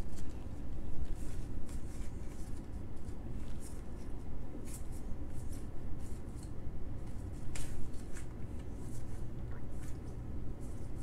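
Baseball trading cards slid one behind another in the hands: a run of short, irregular papery swishes and flicks as each card is moved to the back of the stack, over a low steady hum.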